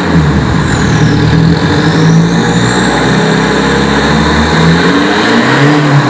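Opel Astra G 2.0 DTI four-cylinder turbodiesel with a straight-piped exhaust and 2.5-inch downpipe, revved repeatedly while standing, its note rising and falling several times in an underground garage. A high whistle rises and falls along with the revs.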